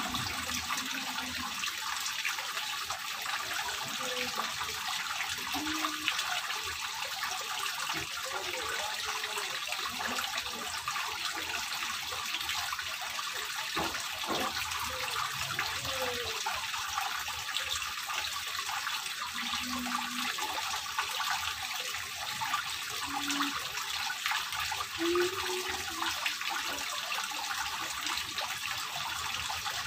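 Water running down a ribbed stone wall fountain and splashing into a small pond below: a steady hiss of falling water that does not change.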